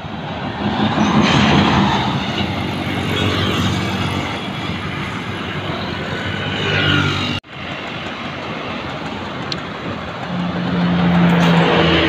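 Tour buses driving past and sounding basuri 'telolet' musical horns, a run of changing tones over the engine and road noise. The sound breaks off for an instant about seven seconds in, then swells again as a bus passes close.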